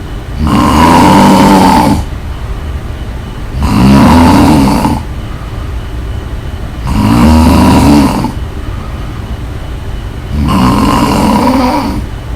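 Loud, rhythmic snoring: four long snores about three seconds apart, each lasting about a second and a half.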